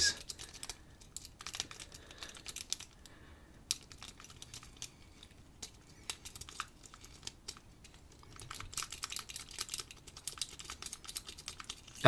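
Steel lock-pick rake scraping and clicking against the pins of a brass padlock as it is worked in and out under a tension wrench: a run of faint, irregular small clicks, busier and a little louder about nine seconds in.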